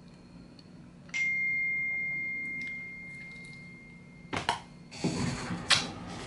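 A phone's notification chime: a single clear ding about a second in that rings on and fades away over about three seconds. Near the end, two clicks and then rustling handling noise with a sharp snap, the loudest moment.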